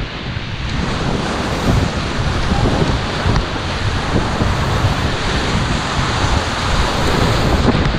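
Whitewater rapids rushing and splashing around an inflatable kayak, with wind buffeting the camera microphone.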